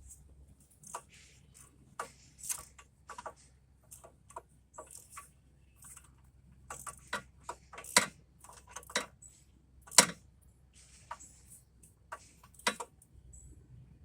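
Ratchet wrench clicking in short, uneven runs as brake bolts are tightened by hand to an angle, with two louder metal clacks about eight and ten seconds in.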